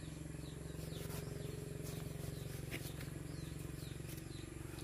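Faint bird chirps, several short downward-sliding notes scattered through, over a steady low hum.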